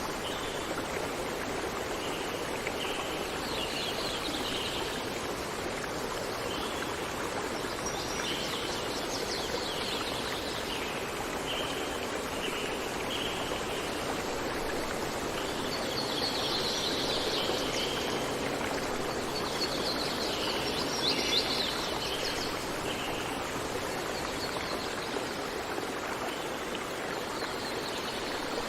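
Running water, a steady stream or small waterfall, with birds singing short phrases over it every few seconds.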